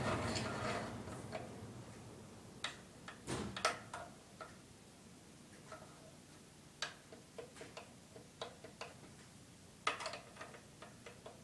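Sharp, irregular clicks and clacks of orange one-handed bar clamps being squeezed and adjusted on a guitar neck, with a quick run of clicks near the end. They are tightening the jig to press a crowned neck flat. A low rushing noise fades away over the first couple of seconds.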